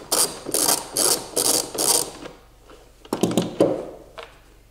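Socket ratchet wrench clicking in a run of even back-strokes, about two and a half a second, as it undoes a bolt. A couple of metal clanks follow about three seconds in.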